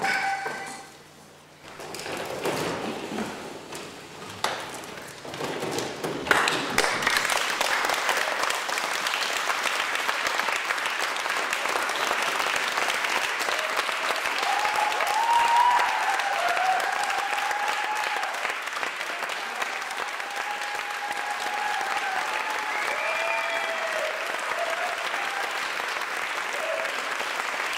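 Audience applause in a packed room, quieter and scattered at first and building to full clapping about six seconds in. In the second half a few voices call out over the clapping.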